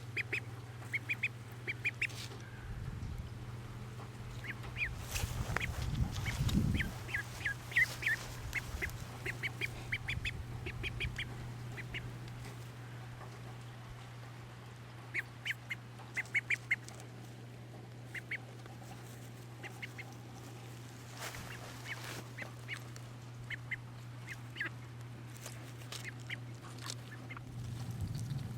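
Three-week-old Cayuga duckling peeping: short, high chirps in quick runs of several at a time, coming and going. A steady low hum runs underneath.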